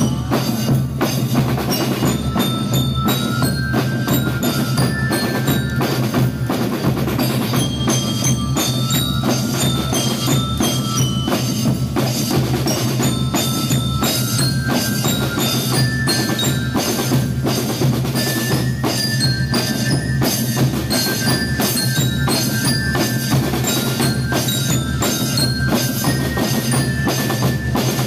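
School rhythm band playing a march: bass drums and snare drums keep a steady beat under a ringing melody of bell lyres.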